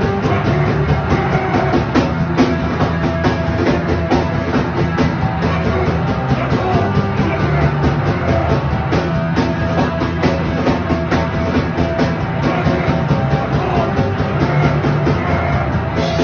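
A live rock band playing at full volume, with the drum kit hammering out a fast, steady beat under bass and guitars.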